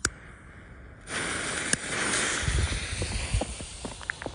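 A click, then about a second in the fuse of a Helios Double Strike firework mortar tube catches and burns with a loud hiss and sputtering crackles, with some low thumps in the middle.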